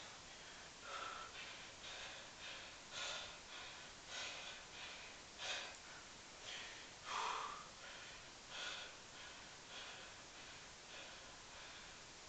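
A man breathing hard from the exertion of a long set of one-leg pistol squats: short, hissy breaths in and out, about one a second, the loudest about seven seconds in.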